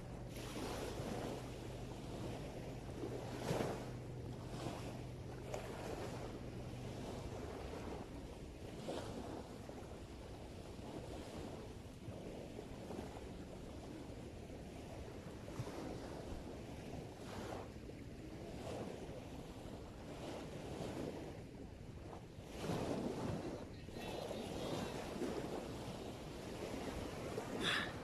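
Sea waves washing on the shore, rising and falling in slow swells, with wind on the microphone. A low steady hum runs underneath for the first several seconds, then stops.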